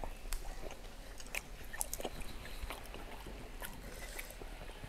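A person chewing food close to a clip-on microphone, with scattered small clicks and taps from eating and handling food at the table.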